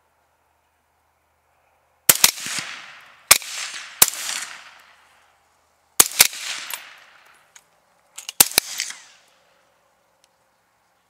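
A rapid string of rifle shots at feral hogs, about eight sharp cracks in four quick clusters, each trailed by echo that dies away over about a second.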